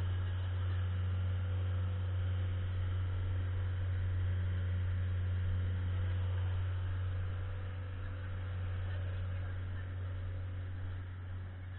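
Outrigger boat's engine running steadily underway, heard as a low, even drone that eases slightly over the last few seconds.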